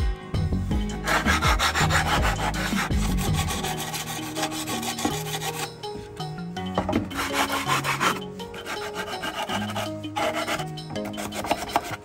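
Sanding a wooden tray feeder, sandpaper rubbing on pine and plywood in stretches: a long one from about a second in, then shorter ones, over background music.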